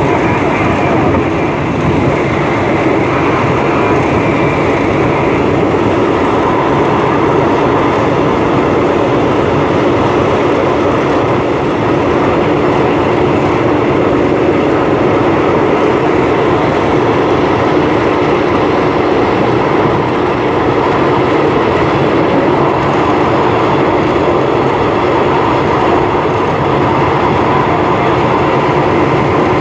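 Passenger train running steadily along the line, heard from aboard a carriage: a continuous rumble and rattle of the wheels and car.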